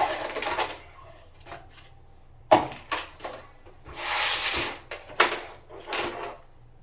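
A few sharp knocks and clatters with rustling in between, like doors and objects being handled.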